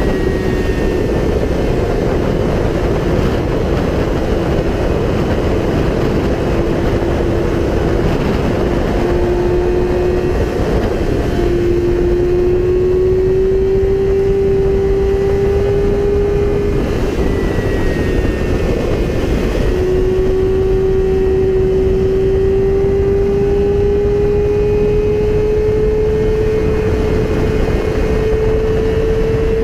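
Yamaha R6 inline-four sportbike engine held at high revs while riding, its pitch climbing slowly with a couple of brief dips, under a heavy rush of wind on the microphone.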